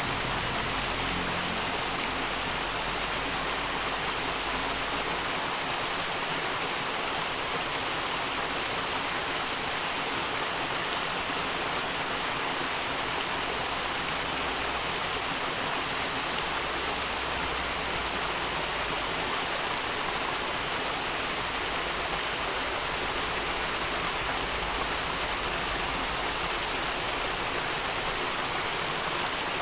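A small wild stream rushing steadily, an even wash of running water.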